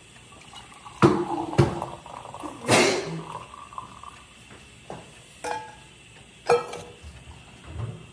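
A steel saucepan clinking and knocking against a plastic tea strainer and mug as green tea is strained and poured. The knocks come one at a time, some with a short metallic ring, and there is a brief splash of pouring about three seconds in.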